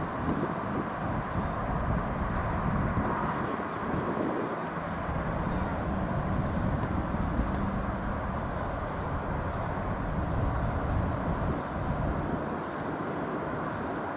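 Distant city ambience: a steady wash of far-off traffic noise with a low rumble, and a faint low drone through the middle seconds.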